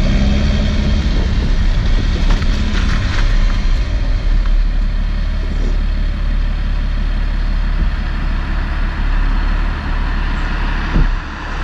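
Exhaust of a BMW E91's straight-six diesel running through a downpipe and straight pipe with the front muffler deleted, heard at the tailpipe. The car rolls to a stop and the engine settles to a steady idle rumble, with a short knock near the end.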